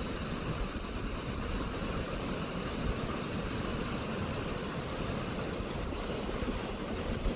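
Steady rushing water of a waterfall, an even roar with a low rumble underneath.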